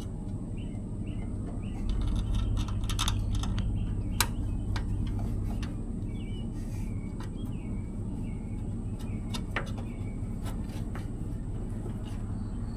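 Small metallic clicks and taps of screws and tools as the sending unit is bolted into the fuel tank, over a steady low hum that grows louder about two seconds in.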